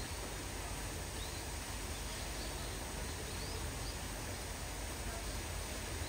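Steady outdoor background noise with a low rumble, and a few faint, short, high bird chirps in the first four seconds.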